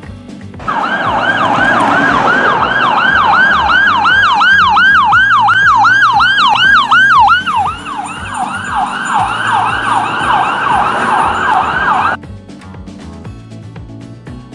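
Ambulance siren in a fast yelp, its pitch sweeping up and down a bit under three times a second. It starts about a second in, a second overlapping siren joins about halfway through, and both cut off suddenly near the end.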